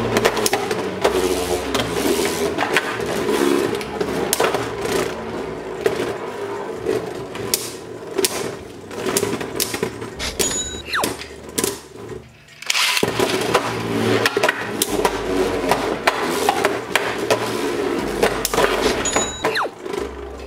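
Two Beyblade Burst spinning tops, Infinite Achilles and Super Ragnaruk, whirring as they spin in a plastic stadium, with frequent sharp clicks as they strike each other and the walls. About twelve seconds in the sound briefly drops away, then the whirring and clatter start again as a new round begins.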